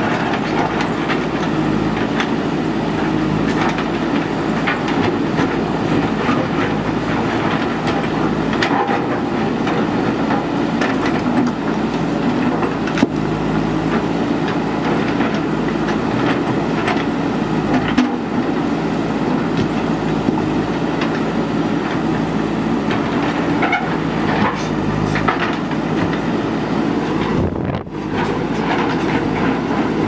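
JCB 3DX backhoe loader's diesel engine running steadily under load while its backhoe bucket digs into broken stone, with frequent sharp knocks and clatter of rock against rock and steel. The sound dips briefly near the end.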